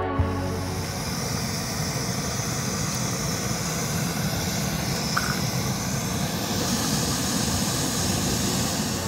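Backpacking canister stove burning at full flame, a steady hiss of gas through the burner.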